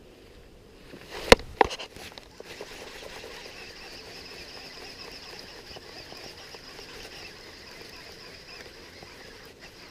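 Two sharp knocks close together about a second and a half in, then soft scratching and rustling of hands rigging a soft-plastic fishing lure close to the microphone, over a steady high-pitched hiss.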